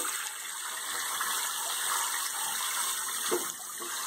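Kitchen sink faucet running steadily, its stream pouring into a sink full of bathwater.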